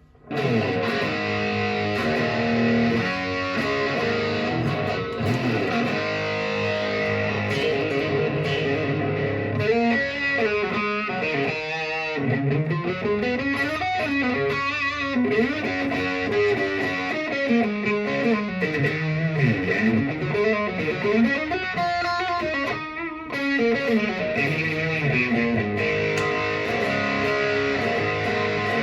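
Electric guitar played through a GBS AFD Distortion Custom pedal, a Marshall-style 'AFD' crunch, with the gain set around three o'clock. It starts with held chords, then from about ten seconds in plays runs of single notes that climb and fall.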